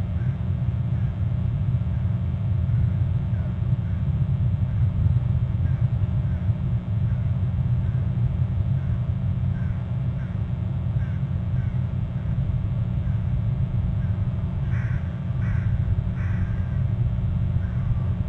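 Steady low rumble with faint short bird calls repeating every half second or so. About fifteen seconds in come three louder bird calls in quick succession.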